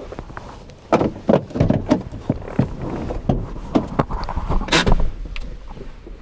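A vehicle door being handled as someone climbs in: irregular knocks, scuffs and rustles close to the microphone, with a louder sharp scrape about five seconds in.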